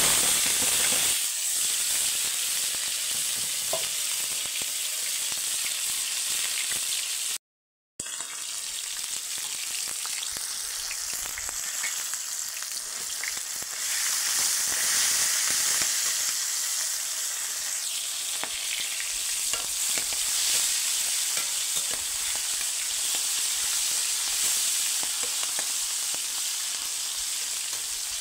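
Chopped onions and vegetables sizzling in hot oil in an iron wok, a steady hiss with small scrapes and clicks as a spatula stirs them. The sound drops out briefly about seven seconds in.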